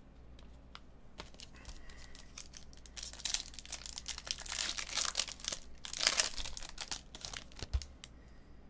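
A trading-card pack's foil wrapper being crinkled and torn open by hand, in two spells of loud crackling. It ends with a soft thump.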